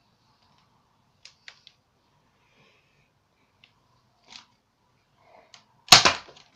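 Nerf Spectre REV-5 spring-powered dart blaster firing a shot: a single loud snap near the end, after a few faint handling clicks.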